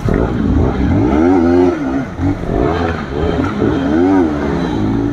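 Motorcycle engine with an aftermarket exhaust revving up and dropping back twice while riding, over a steady hiss of heavy rain and wet tyres.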